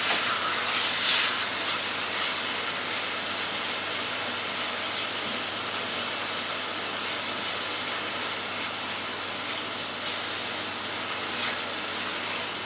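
Chicken thighs frying in olive oil in a frying pan: a steady sizzle, with a few louder spits and crackles about a second in and near the end.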